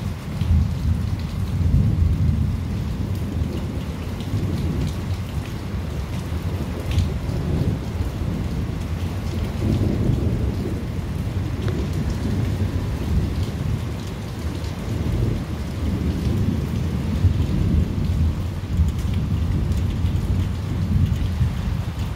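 Thunderstorm: steady rain with low rolling thunder that swells and fades several times.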